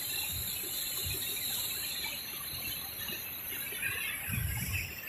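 Steady, even rush of the Neer waterfall's falling water, with a few low bumps about four seconds in.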